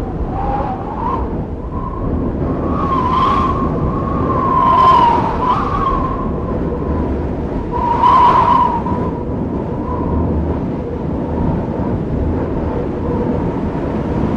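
Blizzard wind gusting, with a wavering whistle that swells in three stronger gusts, over a steady rumble of wind on the microphone.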